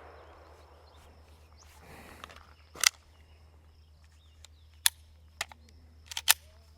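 A handgun being reloaded and holstered: a handful of sharp, separate clicks, loudest about three and five seconds in, with a few quicker ones near the end.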